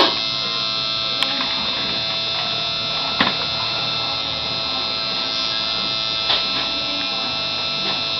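Electric tattoo machine buzzing steadily as it works, with a few brief clicks.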